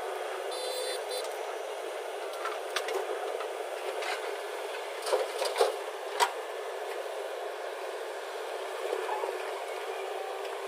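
JCB 3DX backhoe loader running steadily, with a few sharp knocks, the loudest about five to six seconds in.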